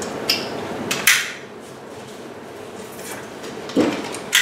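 Stroller harness buckle and straps being handled, giving a few sharp clicks: the loudest about a second in and two more near the end.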